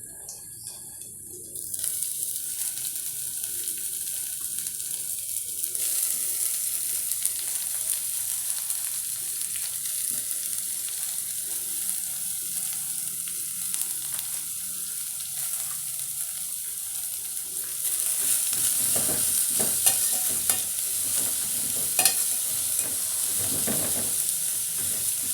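Spinach greens frying in hot oil with softened onions: a steady sizzle that comes up about two seconds in. From about eighteen seconds in it gets louder, with a spoon stirring and scraping in the pan.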